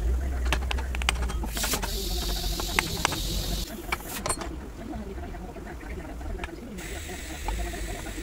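Light metal clicks and clinks as the pulley and body of a power steering pump are handled and taken apart, mostly in the first few seconds, over a steady low hum and hiss.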